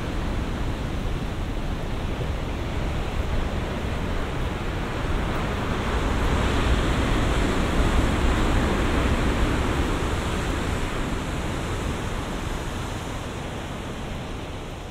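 Steady rushing outdoor noise of wind and sea, swelling a little about halfway through and fading out near the end.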